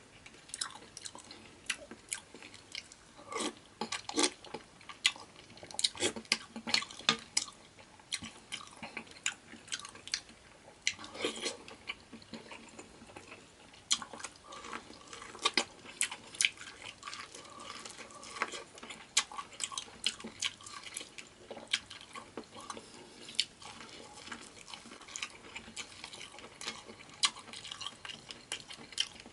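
Close-up eating sounds of a seafood boil: irregular wet chewing, smacking and small clicks.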